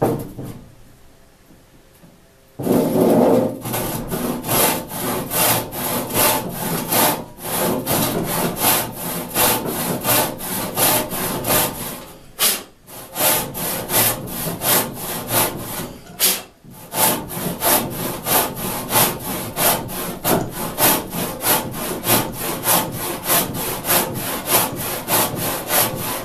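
Disston D-8 eight-point crosscut handsaw cutting across a 6x4 timber beam, starting the guide cut. About two and a half seconds of quiet, then steady, even back-and-forth sawing strokes with two brief pauses near the middle.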